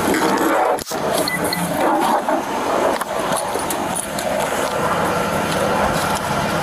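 Rustling, scraping and handling noise from a body-worn police camera rubbing against the officer's arm and the rear door as he leans into a patrol car's back seat to fasten a seatbelt, with small knocks throughout.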